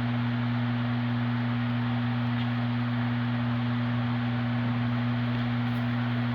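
Steady low electrical hum with two constant tones, a deep one and one an octave above, over a background hiss, typical of mains hum picked up in the recording.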